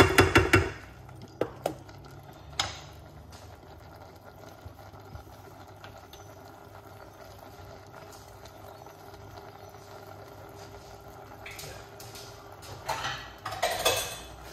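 A wooden spoon knocks and scrapes against a stainless steel saucepan of stir-fried vegetables in the first second, with a few more taps soon after. The vegetables then steam and sizzle steadily in the pan. A short, louder burst of noise comes near the end.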